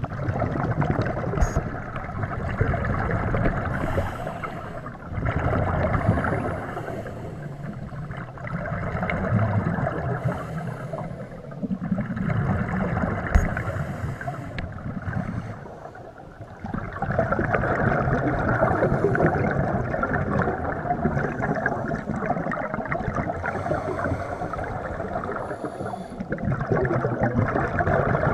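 Scuba regulator breathing heard underwater: the bubbling rush of exhaled air from the regulator exhaust, coming in surges a few seconds long with brief lulls between breaths.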